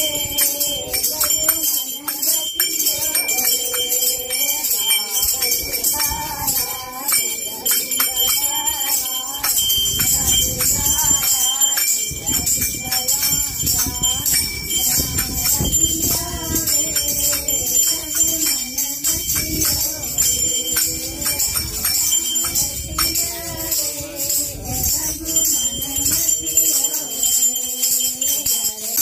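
Devotional aarti singing by a group of voices, with continuous fast rattling and jingling of handheld plastic clappers keeping the beat.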